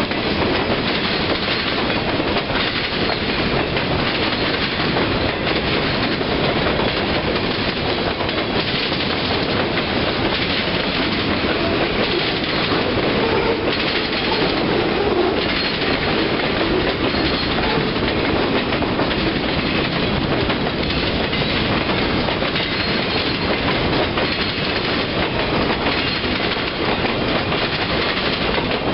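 Freight train cars rolling past close by: steady noise of steel wheels running on the rails.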